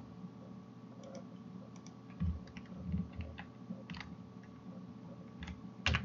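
Computer keyboard keys and mouse buttons clicking in irregular, scattered strokes, a few with a dull knock, over a faint steady hum.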